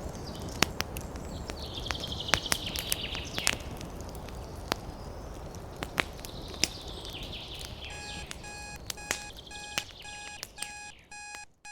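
Campfire crackling with sharp pops, birds chirping in the background. From about eight seconds in, an alarm-clock beeping sounds in quick repeated beeps: the timer alarm marking the end of the countdown. The fire sound fades out just before the end.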